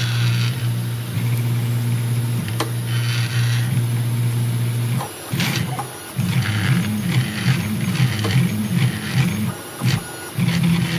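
RepRapPro multi-material 3D printer's stepper motors whining as the print head moves over the build bed at the start of a print. It is a steady low hum for about five seconds, then a tone that warbles up and down in pitch as the head changes direction.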